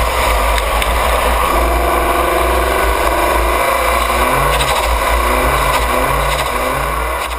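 Car driving with its engine running under load, under heavy wind and road noise; engine tones swell and dip several times in the second half.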